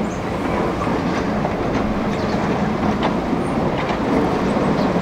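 Hydraulic excavator running as it swings its boom and bucket, its diesel engine steady over the rush of river water, with scattered metallic clinks and squeaks from the machine.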